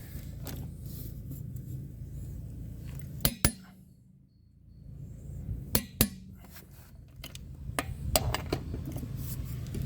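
Click-type torque wrench tightening wheel lug nuts, with several sharp metallic clicks and clinks of the wrench and socket. Two quick double clicks come near the middle: the wrench releasing as each nut reaches its set 140.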